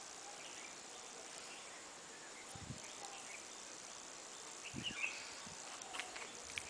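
Steady high insect chirring, with two soft low thumps and a few light ticks in the second half.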